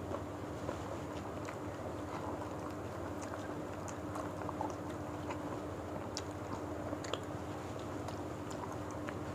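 People chewing rice and sweet-and-sour gourami with their mouths close to the microphone, with scattered small smacking clicks over a steady low hum.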